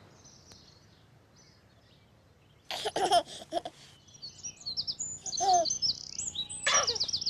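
Birds chirping in quick repeated high up-sweeps, with a baby giggling in short bursts that start about two and a half seconds in, after a nearly quiet opening.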